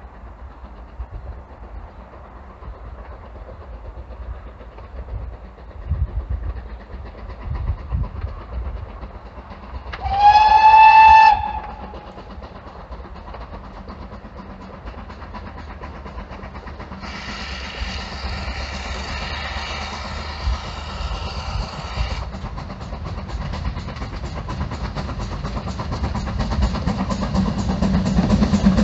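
GWR Manor class 4-6-0 steam locomotive 7820 approaching with a train: one short, loud whistle blast about ten seconds in, then a fainter, longer whistle a few seconds later, over a low rumble. The train's running sound grows louder near the end as it draws close.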